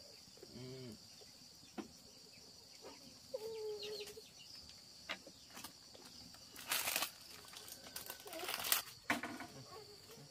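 Chickens clucking in a few short calls, with two louder rustling bursts about seven and eight and a half seconds in, over a steady high insect drone.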